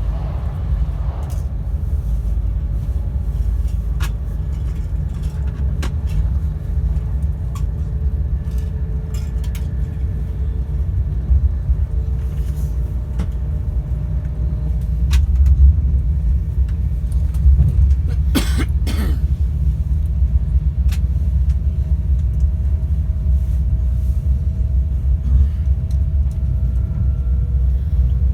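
Inside a Class 390 Pendolino electric train on the move: a steady low rumble from the running gear, with a faint whine from the Alstom traction motors that creeps up slowly in pitch in the second half. Scattered sharp clicks and knocks, and a brief louder rushing burst a little past halfway.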